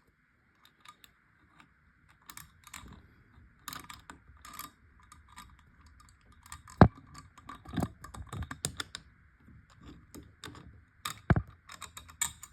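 Door handle hardware clicking and knocking in irregular, small clicks as the mounting screws and the two halves of the lockset are handled and lined up, with two louder knocks about 7 and 11 seconds in.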